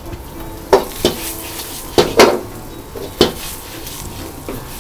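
Metal ladle clanking against a wok as a stir-fry of fried potatoes and dried chilies is stirred and tossed with chili oil at the finishing stage. About five sharp clangs come in the first three and a half seconds, over a light sizzle.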